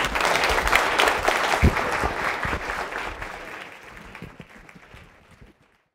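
Audience applauding, dense at first, then fading out from about three seconds in and gone just before the end.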